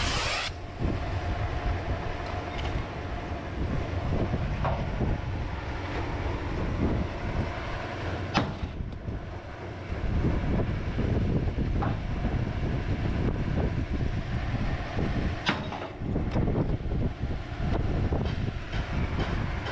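Steel tools and a jack being worked under a truck chassis: irregular low knocks and clunks over a steady low rumble, with two sharp metal clinks, one near the middle and one later on.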